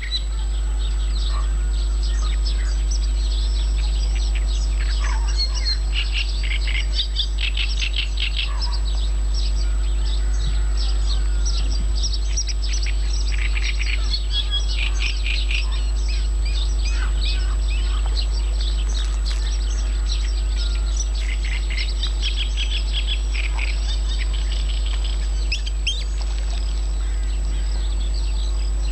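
Songbirds singing in a chorus: rapid trills and chirps repeating one after another, over a steady low rumble.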